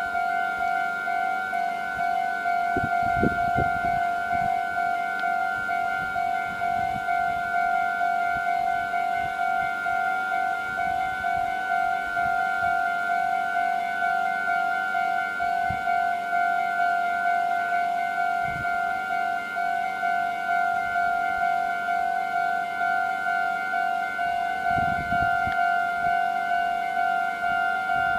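Japanese railway level-crossing warning bell ringing continuously: an electronic ding repeated at a steady, even pace, the signal that a train is approaching and the crossing is closed.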